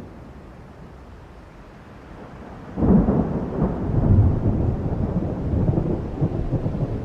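Thunder from a thunderstorm sound effect: a low, steady rumble, then about three seconds in a sudden loud thunderclap that goes on with a deep, rolling rumble.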